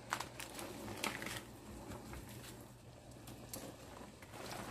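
Faint light clicks and rustles as ingredients are tipped from a noodle packet and a bowl into a steel wok of broth, over a low steady hum.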